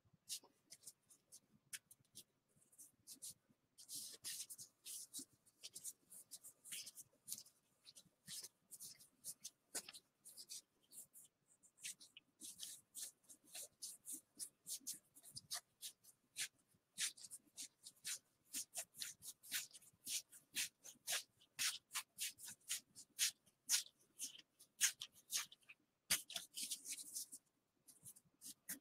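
Gypsy Queen baseball cards being flicked through by hand one at a time and slid off a stack: a dense, irregular run of quick, soft papery flicks and clicks, busiest in a few stretches.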